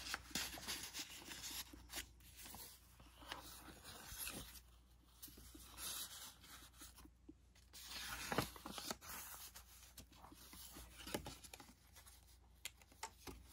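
Faint rustling and brushing of thick paper pages and cards as a handmade junk journal is handled and leafed through, with scattered soft clicks and taps.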